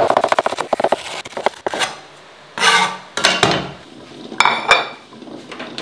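A Chinese cleaver chopping scallions on a wooden cutting board in a quick run of chops, about ten a second, for the first two seconds. Then a few clatters of kitchenware at the wok, one with a short metallic ring.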